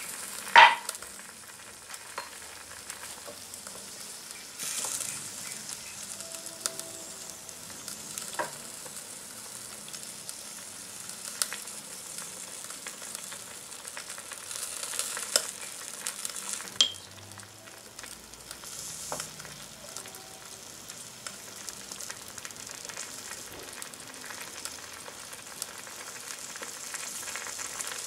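Soup simmering with a steady sizzling hiss in a miniature clay pot over a small flame, while a small wooden spatula stirs and taps against the pot. Scattered sharp clicks and clinks, the loudest about half a second in.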